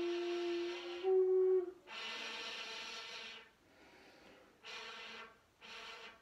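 Shakuhachi bamboo flute holding a breathy note that steps up in pitch about a second in and stops near two seconds, followed by three airy, breath-heavy blows with little clear pitch.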